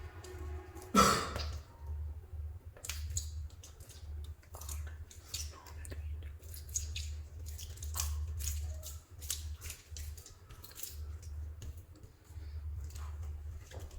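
Soft modelling clay being squeezed and kneaded by hand, making irregular sticky crackles and clicks, with one louder squish about a second in.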